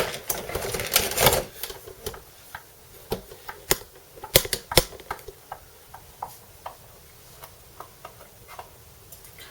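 Clicks and rattles of small tools and hardware being handled while an electric guitar is taken apart: a scraping rustle for the first second or so, then sharp separate clicks that thin out and stop about three-quarters of the way through.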